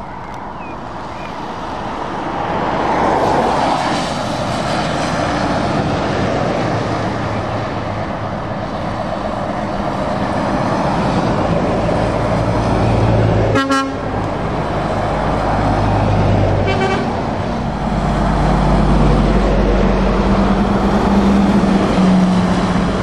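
A convoy of heavy trucks, mostly Scania tractor units, drives past on a wet road: a steady mix of engines and tyre noise. A short horn toot comes about fourteen seconds in, and a fainter one a few seconds later. Near the end a tractor unit passes close by with a low, steady engine drone.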